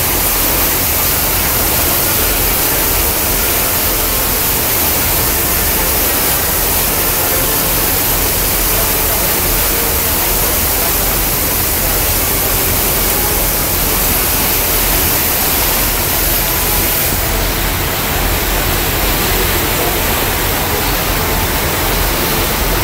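Steady loud rush of wind buffeting the microphone on a moving boat over choppy water, a hiss with a low rumble underneath. The high hiss changes character about two-thirds of the way through.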